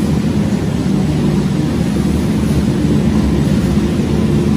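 A 120 kg industrial coffee roaster running mid-roast: a steady, unbroken low mechanical drone with a few steady hum tones in it.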